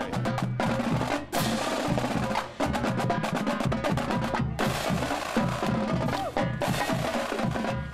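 Marching drumline playing a cadence on snare drums and bass drums: rapid sharp snare hits over bass drum beats, with two brief breaks about one and two and a half seconds in.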